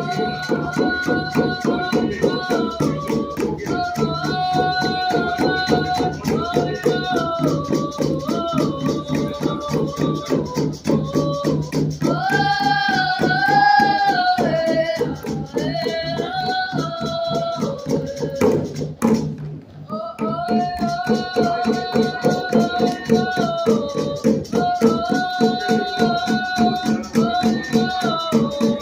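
Drum group singing together in unison over a steady, even drumbeat. The singing breaks off briefly about two-thirds of the way through, then starts again.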